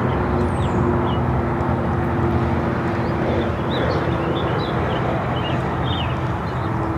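A steady motor hum with a few held low tones over a rushing background, while small birds chirp in short, high calls again and again.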